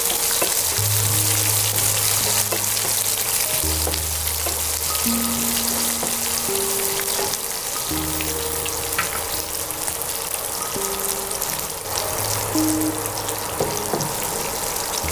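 Green chillies, with mustard and sesame seeds, sizzling steadily in hot oil in a pan for a tadka. Background music with slow low notes plays underneath.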